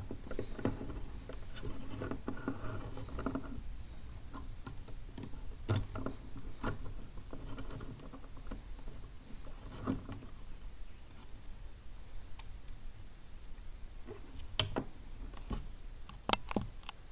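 Lego Technic plastic parts clicking and rattling in the hands while the engine model is handled. There is a cluster of small rattles at the start, then scattered single sharp clicks, with a close pair near the end.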